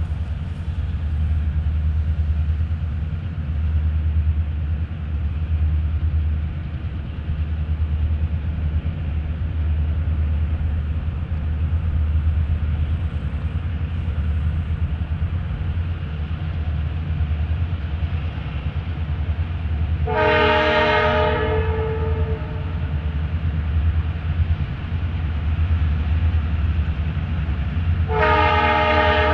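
EMD GP38-2 diesel locomotive's 16-cylinder two-stroke engine running with a steady low rumble as it pulls a freight train slowly. The locomotive's multi-note horn blows twice as it nears the grade crossing: one blast of about two seconds around 20 seconds in, and another starting near the end.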